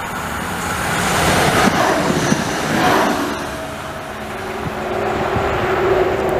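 Stadler Citylink tram-train running past on railway track: wheel and rail noise that swells and fades, with a steady motor hum in the second half.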